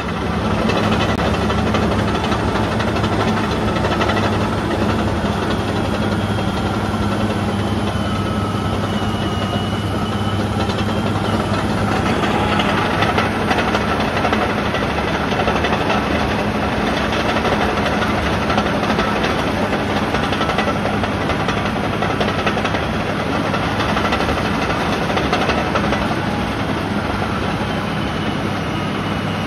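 The six-cylinder Cat diesel engine of a Cat D7G crawler dozer running steadily, heard up close from on the machine during a test run.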